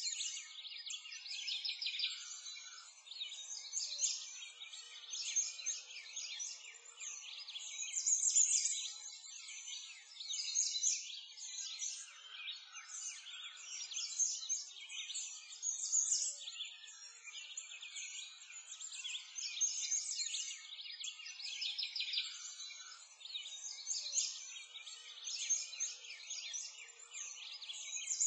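Ambient chorus of small birds chirping and twittering, high-pitched and continuous, rising and falling in loudness every few seconds.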